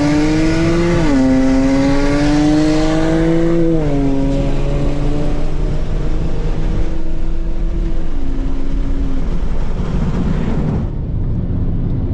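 Car engine at full throttle in a roll race: the pitch climbs, drops sharply at an upshift about a second in, climbs again to a second upshift near four seconds, then runs lower and eases off toward the end.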